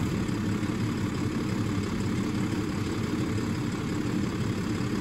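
Peterbilt side-loading garbage truck's diesel engine idling with a steady rumble.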